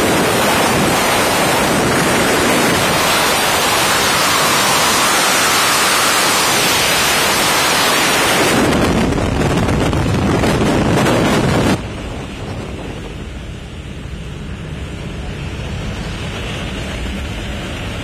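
Strong wind rushing over the microphone, a loud steady roar that drops suddenly about twelve seconds in to a much quieter windy hiss.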